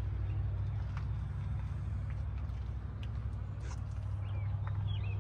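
A steady low hum, with a few faint bird chirps and light clicks near the end.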